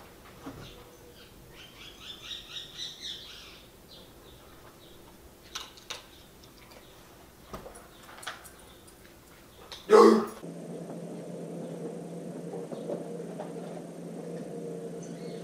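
Pet birds chirping, with a quick run of about eight falling chirps about two seconds in. A loud knock comes near the ten-second mark, and after it a steady low hum takes over.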